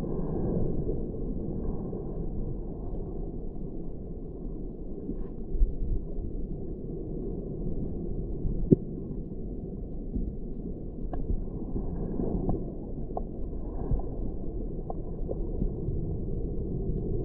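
Muffled, low rumble of moving seawater heard through a waterproof action-camera housing held underwater. Several sharp ticks come in the second half, the loudest a little under nine seconds in.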